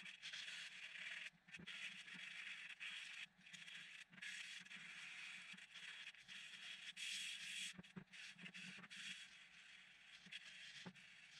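Sandpaper rubbed by hand over a plywood block: faint, uneven scraping strokes with short pauses between them.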